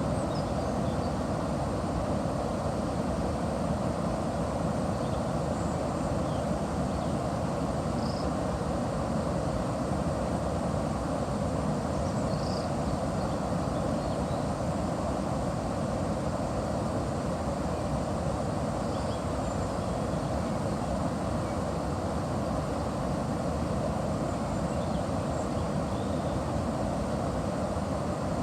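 Steady rush of river water flowing at a watermill on the Chiascio, an even low roar with no breaks, and faint high chirps now and then.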